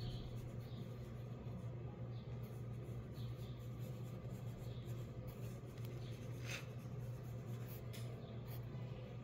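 Wooden pencil scratching on paper in short, soft, irregular strokes while drawing, a little louder about six and a half seconds in, over a steady low hum.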